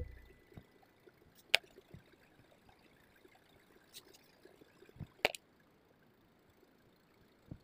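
Mostly quiet, with a few short sharp clicks and taps from a fine-tip pen and a hand working on paper laid on a table. The two loudest clicks come about one and a half seconds and five seconds in.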